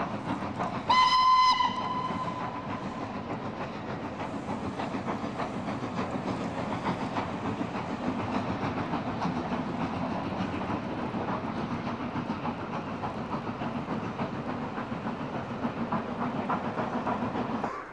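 Steam locomotive sounding its whistle once, briefly, about a second in, then running with a steady rhythmic train noise. The sound cuts off abruptly near the end.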